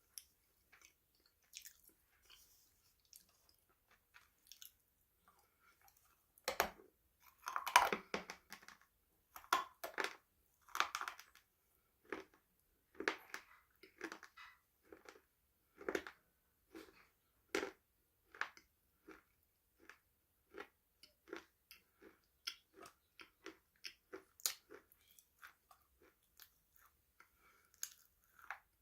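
A person biting into and chewing crunchy food. A few faint crackles at first, then the loudest crunches come in a cluster about seven to eight seconds in. Steady chewing follows at about one to two chews a second, growing quieter toward the end.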